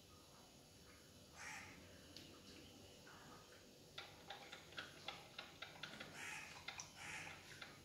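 Near-silent room with a run of faint clicks, about three a second, starting about halfway through, and a few short soft hisses.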